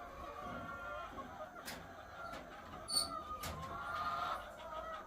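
Many egg-laying hens clucking and calling together, with a few sharp clicks; the loudest, about three seconds in, has a short high ring after it.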